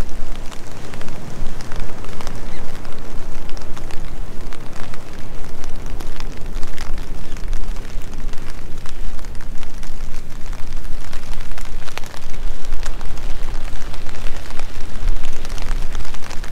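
Steady rain, with many separate drops ticking close by, over a constant low rumble.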